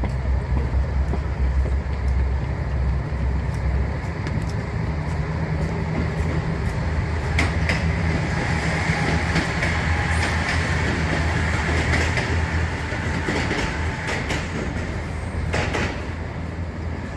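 A rail vehicle running on the tracks with a steady low rumble, a high-pitched squeal rising in the middle and a couple of sharp clacks.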